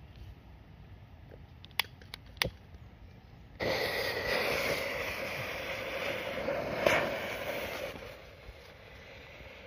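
A gas lighter clicking three times, then the fuse of a coloured smoke bomb catches and the smoke charge hisses loudly for about four seconds, with one sharp crack partway through, before dying down.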